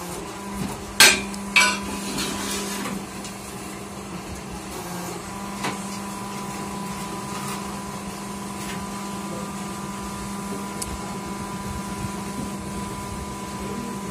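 Brick-making machine running with a steady mechanical hum. About a second in there are two sharp, loud metallic clanks, and a lighter knock follows a few seconds later.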